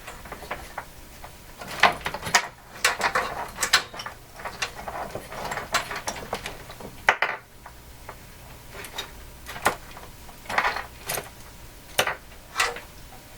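Tools and small parts being handled on a workbench: irregular clicks, knocks and clatter, some hard objects ringing briefly as they are set down.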